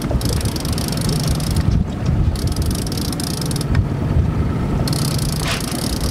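Fishing reel clicking rapidly in three spells as a hooked chinook salmon is played on a bent rod, over the steady hum of the boat's engine and wind rumble.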